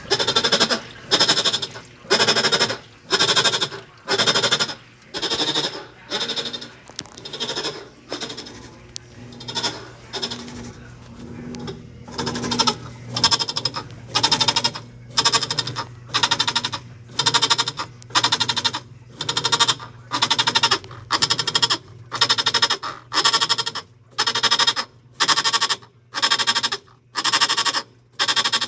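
Whirlpool washing machine agitating a load, with a loud noise pulsing about one and a half times a second over a steady motor hum. The noise comes from a drive pulley worn on the inside, which lets the pulley play on its shaft.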